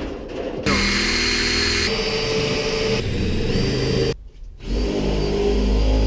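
Electric drill running under load, drilling out school-bus floor rivets, its steady motor pitch shifting abruptly between takes, with a brief drop about four seconds in.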